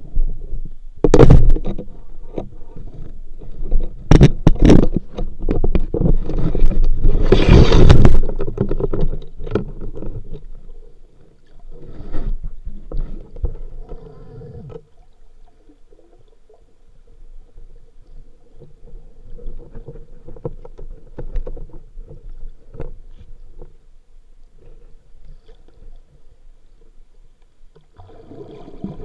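Underwater handling noise picked up through a waterproof camera housing: muffled knocks, bumps and water rushing past, loudest in the first eight seconds, then fading to faint scattered knocks over a low steady hum.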